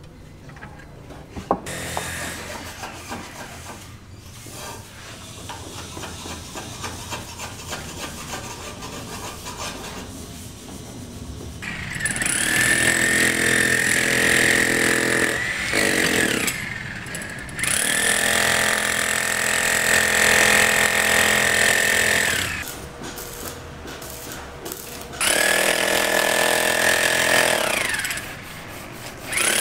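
A power tool motor runs in loud stretches of a few seconds each, switched on and off four times from about twelve seconds in, over quieter building-site noise before that.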